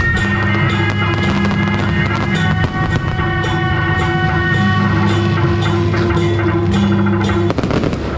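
Music with long held notes over a steady low bass and drums. A short burst of noise breaks in near the end.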